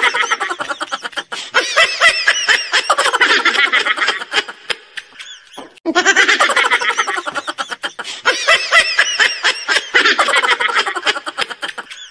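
Soundboard sound effect of high-pitched, rapidly repeating laughter, played in two runs with a short break in the middle and cutting off suddenly at the end. It was set off by an accidental button press.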